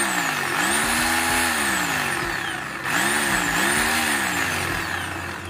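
Makita rotary hammer drill's electric motor test-run after reassembly, the trigger pulled in short bursts: the motor whines up in pitch and winds back down, twice. It is running again after the armature and stator repair.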